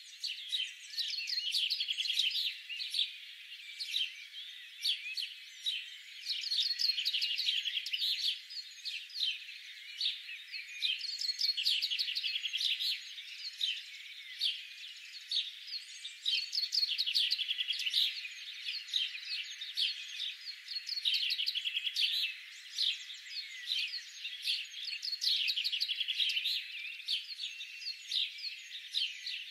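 Many small birds chirping and twittering together in a dense, continuous chorus of quick, high-pitched notes.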